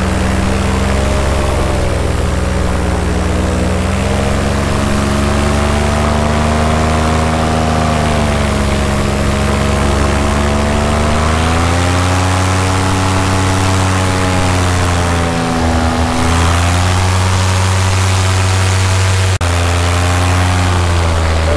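Paramotor's two-stroke engine and propeller running steadily in flight, its pitch drifting slightly up and down.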